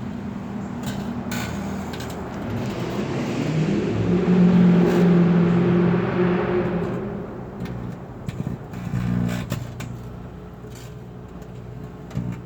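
Microwave oven running with a mobile phone inside, giving a steady electrical hum; a louder hissing swell builds and fades in the middle.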